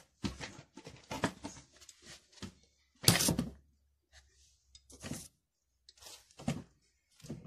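Handling noise: a string of short knocks, clicks and rubs as a plastic-and-metal scooter steering lever with its axle is moved about by hand over a wooden table, with the loudest thump about three seconds in.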